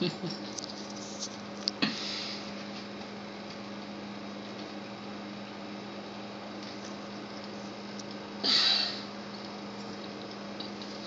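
Steady low electrical hum over faint room noise, with a few short clicks in the first two seconds and one short breathy rush of noise about eight and a half seconds in.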